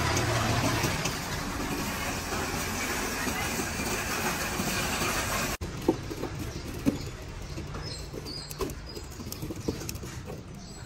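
A loud, dense crackling hiss for about five seconds. Then a metal poker stirs charcoal in a steel grill box: quieter scraping with a few sharp clinks as the rod knocks the coals and the box.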